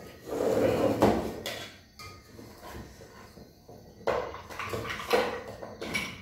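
Plates and cutlery clattering as rice is scooped onto a plate, in two spells with a quieter pause between, with low, muffled voices.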